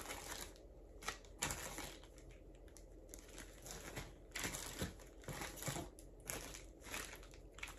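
Faint rustling and crinkling of packaging, with scattered light clicks and taps, as a pair of sunglasses is taken out of a cardboard box and its bag.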